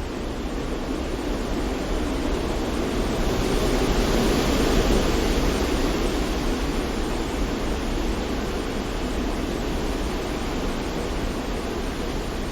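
White-noise sleep track: a steady rushing hiss with a deep rumble under it, swelling slightly about four to five seconds in and then settling back.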